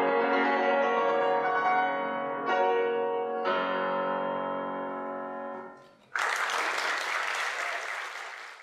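Grand piano playing sustained chords, with new chords struck about two and a half and three and a half seconds in, then dying away. Audience applause breaks out suddenly about six seconds in and tapers off near the end.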